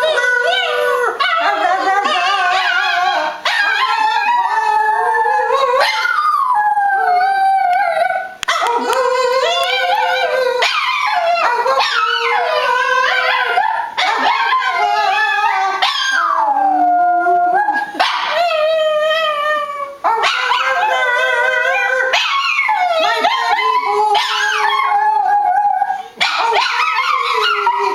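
Boston Terrier howling: long wavering howls that slide up and down in pitch, one after another with short breaks every two to three seconds.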